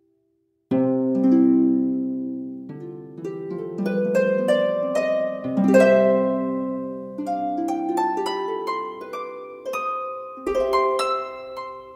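Background music: after a moment of silence, a melody of short, ringing notes, each struck and fading.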